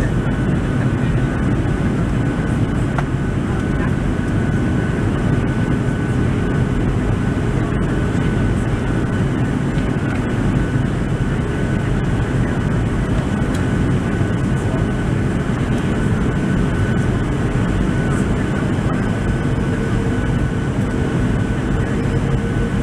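Steady cabin noise inside a Boeing 737-700 in flight: the low drone of its CFM56 engines and the rush of air over the fuselage, with a faint steady whine. A second, lower whine joins near the end.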